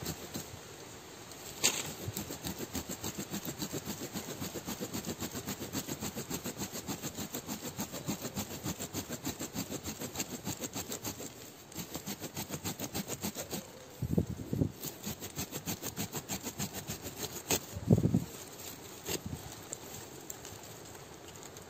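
A hand blade digging and scraping into forest soil around a small tree's root base, in quick repeated strokes of about three or four a second, with a few heavier knocks along the way.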